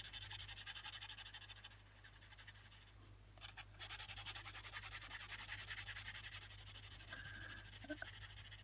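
Pencil scratching on paper in quick, even back-and-forth shading strokes, several a second, laying down a dark shade. The strokes stop for about two seconds a little way in, then resume.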